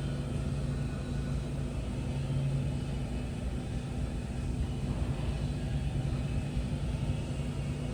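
SYIL V7 CNC vertical machining center moving its Z axis: a steady motor hum from the axis drive, with a low tone that swells a little at times.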